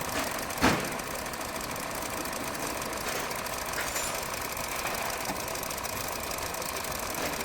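Hyundai Verna petrol engine idling steadily, with one sharp knock about a second in. The engine is overheating and losing coolant.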